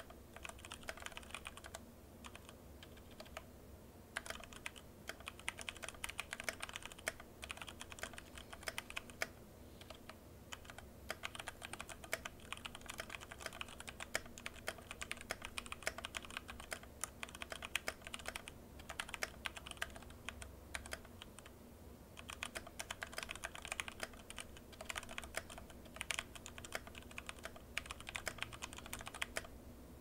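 Typing on a Royal Kludge RK104 Plus mechanical keyboard fitted with PBT keycaps: dense runs of keystrokes lasting several seconds, broken by short pauses.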